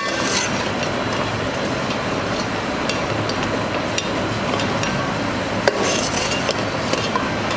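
Kitchen clatter: a few sharp knocks and clinks of utensils over a steady background din, the loudest knock about two-thirds of the way through.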